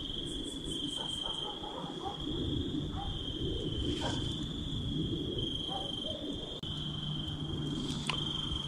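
Spirit box scanning radio static, low garbled fragments of sound coming and going, under a steady high-pitched insect chorus of the night woods.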